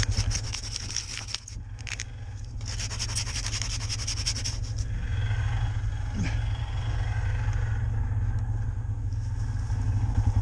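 Vehicle engine running steadily while driving through deep snow. For about the first five seconds a rapid run of scraping ticks sounds over the engine, then fades.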